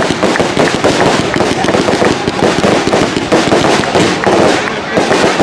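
Fireworks going off in rapid succession, a dense continuous crackling with many quick bangs close together.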